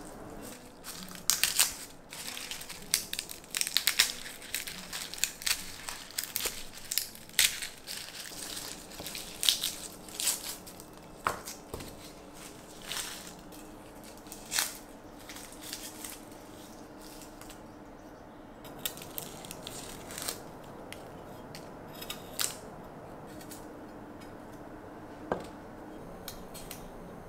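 Dry, papery garlic skins crackling and crinkling as whole garlic is broken apart and the cloves peeled by hand. The crackles come thick and fast through the first half, then thin out to occasional snaps.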